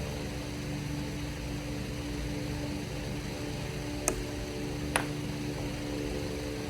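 Steady mechanical hum with a few held tones, and two sharp clicks: one a little after four seconds in, the next about a second later.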